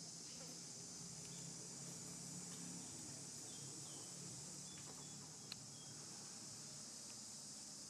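Steady, high insect chorus running without a break, with a faint click about five and a half seconds in.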